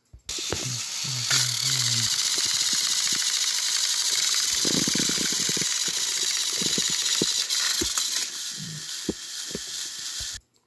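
Battery-powered toy train motors whirring and gear-grinding as two motorized engines strain against each other on plastic track, with a fast rattle of gears and scattered clicks from wheels and couplings. The sound starts abruptly and cuts off suddenly near the end.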